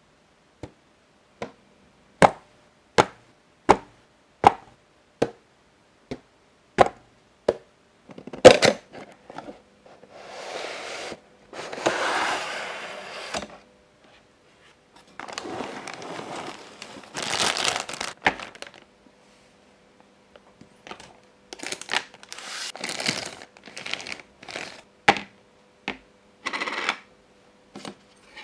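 Unboxing a Q Posket figure: an even series of sharp taps on the plastic-windowed box, about one every three-quarters of a second, then a loud knock about eight seconds in. After that come long stretches of rustling and crinkling as the cardboard insert slides out and the plastic packaging is opened, with scattered clicks of plastic figure parts being handled.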